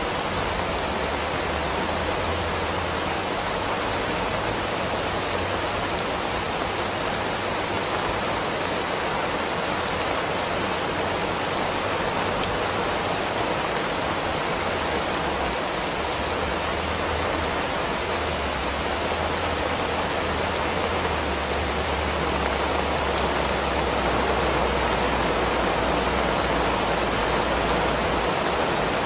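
Steady rain shower falling, an even hiss of rain with a low rumble underneath.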